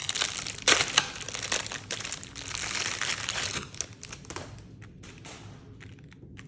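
Crinkling and rustling of a snack package's plastic wrapper as it is handled, busy for about four seconds, then dying down to a few faint clicks.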